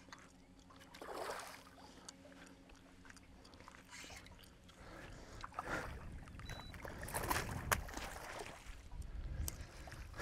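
Water splashing and sloshing at the surface as a released barramundi swims off. A faint steady hum runs through the first half, and a low rumble with a few short splashy flares comes in the second half.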